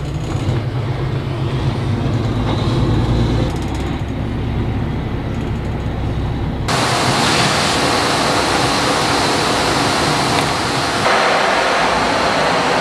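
Vehicle engine running with a steady low rumble as heard from inside the cab. About six and a half seconds in it cuts abruptly to a loud, steady rushing noise of a vehicle or its fan.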